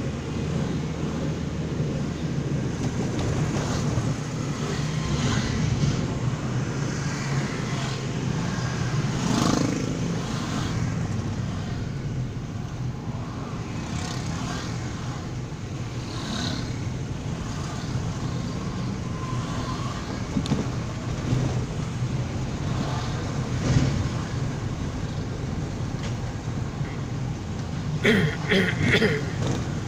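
Road traffic heard from inside a moving car: a steady low engine hum and tyre noise, with motorcycles around it. A short pitched sound comes near the end.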